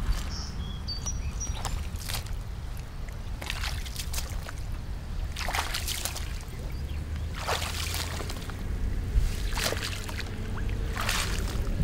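Shallow water splashing and sloshing in separate splashes every second or two, as someone wades out from the shore, over a steady low rumble.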